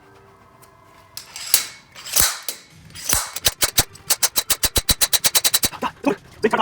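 Slide hammer of a blind bearing puller knocking against its stop as it works a wheel bearing out of a heated ATV front hub. A few separate hard metallic knocks come first, then a fast run of sharp clacks at about seven a second.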